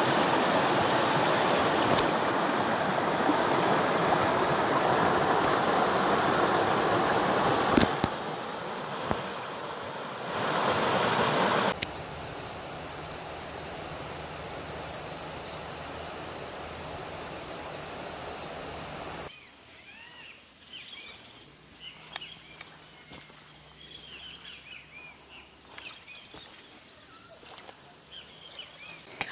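Rushing stream water for about the first twelve seconds, dipping briefly in the middle. Then a steady high insect chorus at night, and from about two-thirds through, quieter ambience with scattered small bird chirps.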